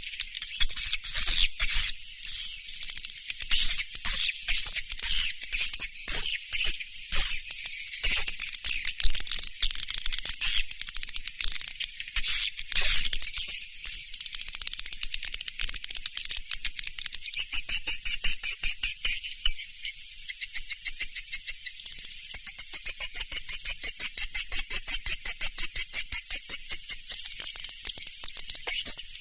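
Edible-nest swiftlet lure call: dense, high, buzzy chirping and twittering. In the second half it turns into a fast, even rattling trill.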